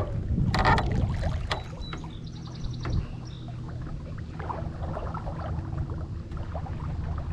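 Small outboard motor on a jon boat running steadily at low speed, a low hum, with the boat moving through the water.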